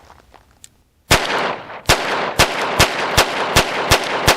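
Walther P22 Q pistol firing .22 LR rounds, eight shots starting about a second in: the first on its own, then the rest in quick succession at about two or three a second, with echo between them. Each round fires and cycles without a stoppage.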